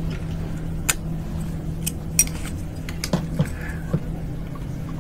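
Glass microscope slides clinking and tapping as one slide is taken off the microscope stage and the next is put on: a handful of sharp, irregular clicks over a steady low hum.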